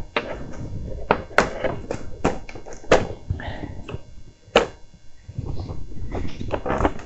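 Irregular sharp clicks and knocks of a mobility scooter's plastic display panel housing being handled and pushed into place on the tiller.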